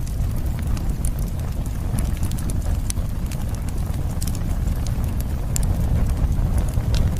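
Wood campfire burning, with irregular sharp crackles and pops from the burning logs over a steady low rumble.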